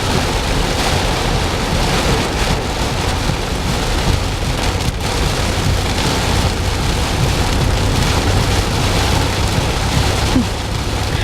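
Heavy rain falling steadily on a car, heard from inside during a downpour.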